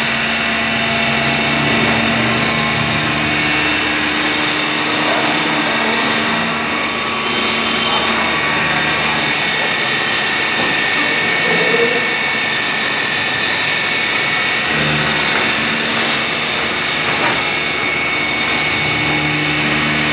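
CNC milling machine's spindle running as an end mill cuts a cast gearbox casing: a steady, loud machine whine with high tones, and lower tones that shift a few times.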